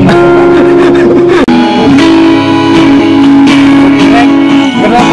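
Music with guitar, loud and steady, cutting out for an instant about a second and a half in.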